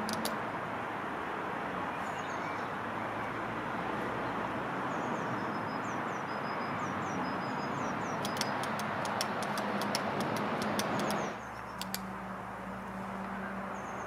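Outdoor ambience: a steady wash of background noise with small birds chirping, and a quick run of sharp clicks about eight seconds in. About eleven seconds in the noise drops abruptly to a quieter background with a low steady hum.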